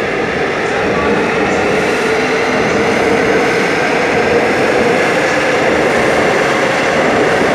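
Seoul Metro Line 2 electric train departing the station, its cars rolling past the platform. The running noise is loud and steady, with a faint whine.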